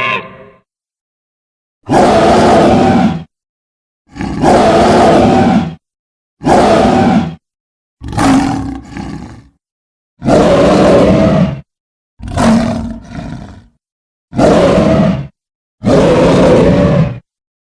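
Tyrannosaurus rex roar sound effects, eight loud roars in a row, each about a second or a second and a half long, with short silences between. Two of the roars break off and trail into a second, weaker part.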